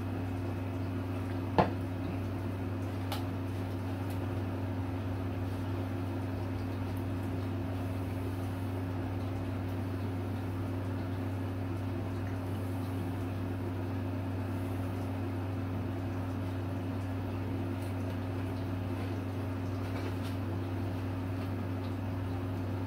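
Steady low machine hum in a small room, with one sharp click about a second and a half in and a fainter tick a couple of seconds later.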